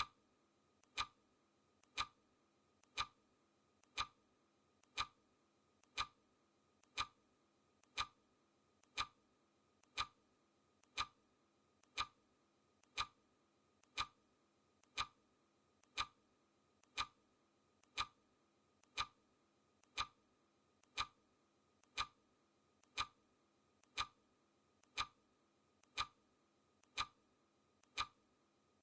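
Clock-style ticking sound effect of a countdown timer: one crisp tick every second, perfectly steady, with a fainter click between the ticks.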